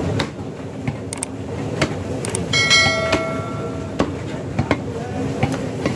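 Butcher's cleaver chopping through beef onto a wooden stump block: a run of sharp knocks at irregular intervals. About two and a half seconds in, something metallic rings briefly for about half a second.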